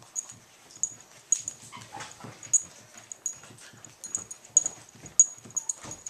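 A Boston terrier sitting up and scratching itself with its paws, its collar tags jingling in quick, irregular clicks, with soft scuffing and thumps from its body on a hardwood floor.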